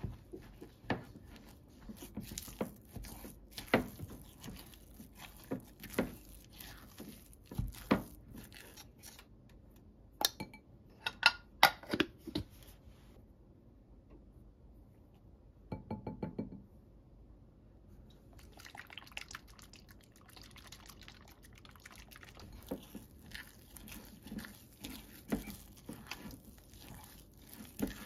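Silicone spatula mixing a thick carrot cake batter in a glass bowl: repeated soft taps and scrapes against the glass. A quiet pause of a few seconds comes in the middle, with a short run of taps within it.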